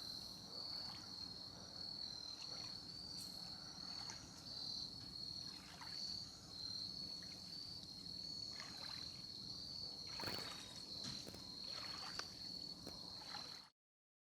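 A chorus of crickets chirring steadily in one high, pulsing note, with a few brief scrapes or splashes around two-thirds of the way in. The sound cuts off suddenly near the end.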